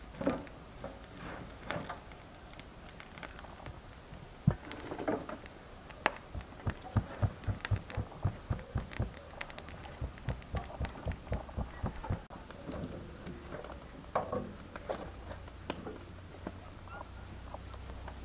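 Hands patting and pressing a folded, greens-filled flatbread dough on a floured wooden board. Midway through comes a run of soft, dull pats, about three or four a second, for several seconds, among lighter handling and rustling sounds.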